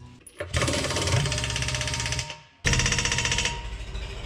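Impact wrench hammering in two long bursts, cutting out abruptly a little over two seconds in and starting again at once.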